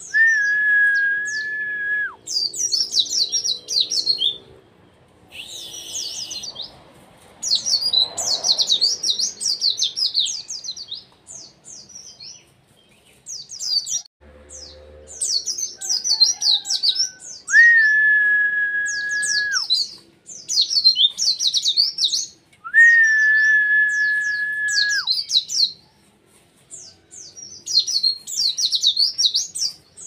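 White-eye (pleci) singing in bursts of rapid, high twittering chirps with short pauses between them. A long level whistle, held for about two seconds, comes in three times: at the start and twice in the second half.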